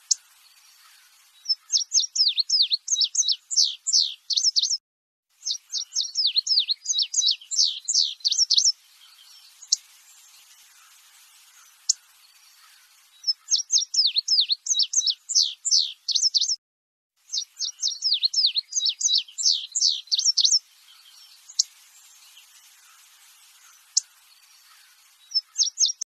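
Male indigo bunting singing: four bursts of rapid, high, slurred notes, each about three seconds long, with short pauses between them and a brief fragment of song near the end.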